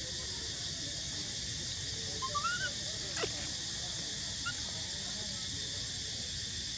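Baby monkey giving a few short squeaky calls: a quick run of rising squeaks between two and three seconds in, then a sharp falling cry. A steady high hiss runs underneath.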